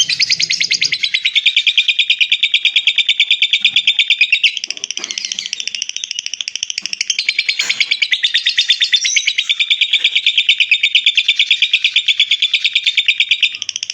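Lovebird ngekek: one long, unbroken, high-pitched chattering trill of rapid notes, about ten a second, with a few faint knocks underneath.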